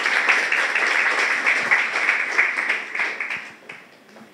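Audience applauding at the end of a talk, a dense patter of hand claps that dies away about three and a half seconds in.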